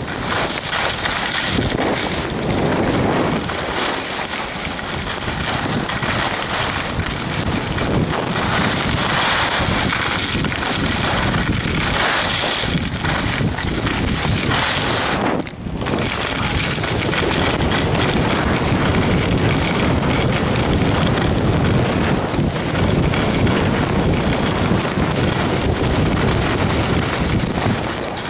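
Wind rushing over the camera's microphone during a fast downhill run on a ski slope, a steady loud roar of air with a brief dip about halfway through.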